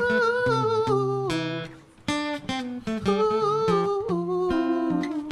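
Acoustic guitar strummed while a singer holds two long wavering notes without clear words. The playing drops away briefly about two seconds in.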